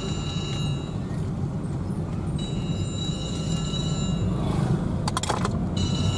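Steady low rumble of a moving car's engine and tyres as heard from inside the cabin. A thin high whine comes in and out several times, and there is a brief patter of clicks about five seconds in.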